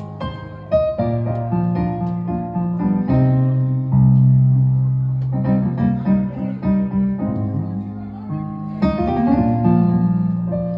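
Instrumental keyboard music: chords with long held low bass notes, changing every second or two.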